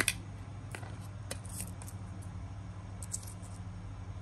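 Handling noise from a phone and small lens-protector parts: a sharp double click at the very start, then a few fainter clicks and ticks, over a steady low hum.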